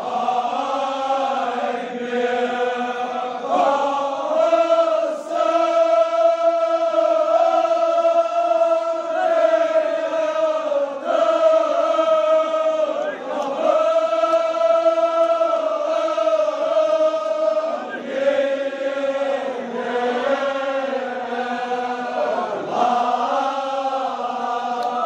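A large group of men chanting a Kashmiri marsiya in unison, holding long drawn-out notes in phrases of a few seconds each, with short breaks between phrases.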